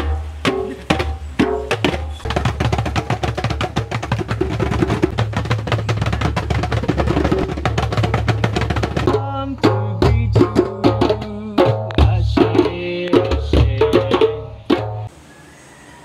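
Several djembes played together by hand: a dense run of rapid strokes, then a slower pattern of separate slaps and ringing tones, stopping suddenly near the end.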